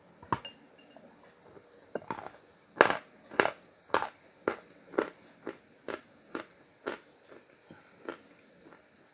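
A person biting into and chewing Khrapovsky chalk. A sharp bite comes about two seconds in, then crisp crunches at about two a second that grow fainter toward the end.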